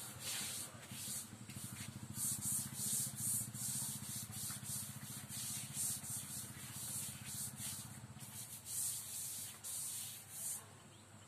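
Chalkboard duster rubbing across a blackboard as the board is wiped clean, in repeated back-and-forth strokes of about two a second that stop shortly before the end.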